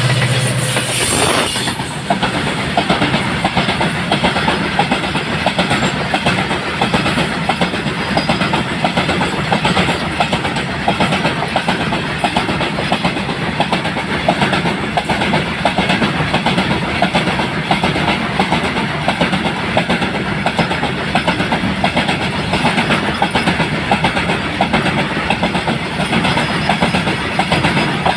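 A rake of BCNHL covered freight wagons rolling past, with a steady, rapid clatter of wheels over the rail joints. In the first second or two the low engine sound of the twin WDG-4 diesel locomotives, EMD 16-cylinder two-stroke engines, fades out.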